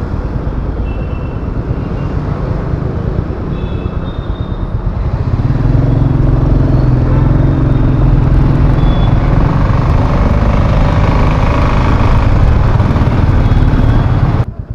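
Royal Enfield Classic 350's single-cylinder engine pulling the motorcycle along a city road, a dense low rumble of engine and road noise with a few short high beeps from traffic in the first seconds. It grows louder about five seconds in and drops away suddenly near the end.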